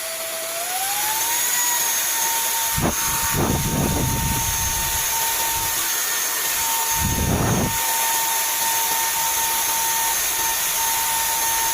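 Cordless stick vacuum cleaner's motor on its high-speed setting, spinning up with a rising whine and then running at a steady high pitch without cutting out, on a repaired lithium battery pack that used to shut it off within seconds. Brief muffled rushing sounds come about three and seven seconds in.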